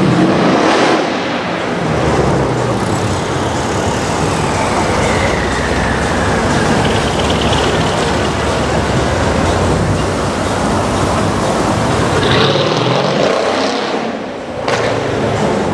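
Tuned Mercedes-AMG CLS 63 with a twin-turbo V8 and an Fi aftermarket exhaust, accelerating past and away with a loud, continuous exhaust note. A tone in the sound falls in pitch as the car pulls away.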